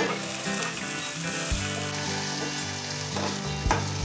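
Chopped tomato and onion sizzling in hot oil in a kadhai while a spatula stirs them, with a couple of knocks of the spatula against the pan.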